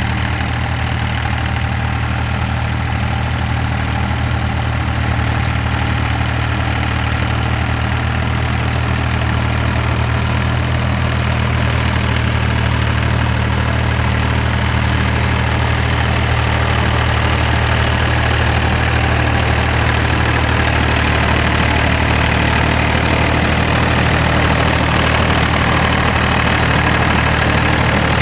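David Brown 885 tractor's three-cylinder diesel engine running steadily while driving a Howard Rotavator through maize stubble, growing a little louder as it comes close.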